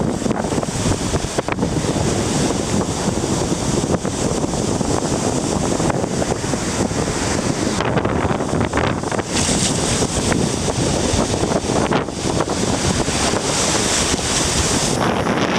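Strong typhoon wind buffeting the microphone over rushing water and surf. A brighter hiss comes in about halfway through and drops away near the end.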